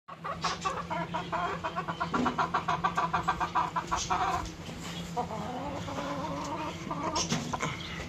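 Aseel chickens clucking: a rapid run of clucks, about six a second, for some four seconds, then a longer drawn-out call. It is the cackle of a hen beside a freshly laid egg.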